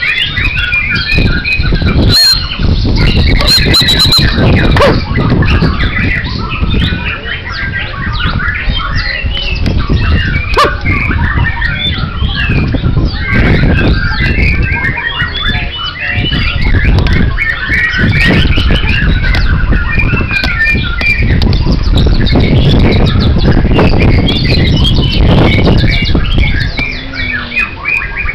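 Several caged songbirds singing at once, a dense, overlapping stream of quick chirps and whistles, over a loud continuous low rumble.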